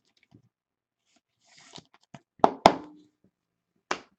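Trading cards being handled between announcements: a short rustle about one and a half seconds in, then a few sharp clicks and knocks, the two loudest close together near the middle and one more near the end.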